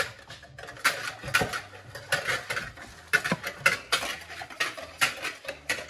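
Metal wire balloon whisk beating pancake batter in a plastic bowl: a quick, uneven clatter of wires against the bowl, about two or three strokes a second.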